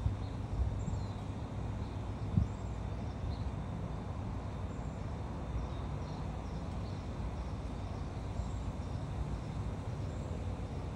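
Outdoor background: a steady low rumble, with a few faint, short high chirps scattered through it and a brief knock about two and a half seconds in.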